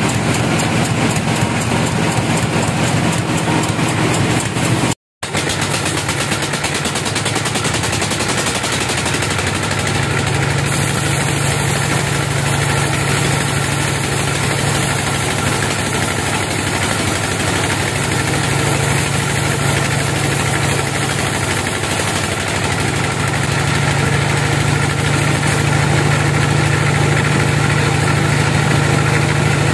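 Log bandsaw mill running steadily, a continuous low mechanical drone. The sound drops out for a split second about five seconds in.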